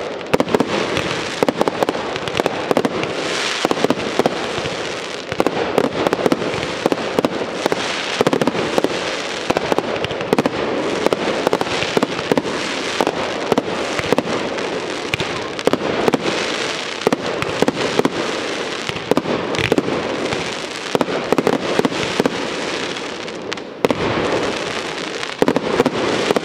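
Aerial fireworks display: a dense, continuous barrage of shell bursts, with many rapid pops and bangs over one another and a short lull about 24 seconds in before more bursts.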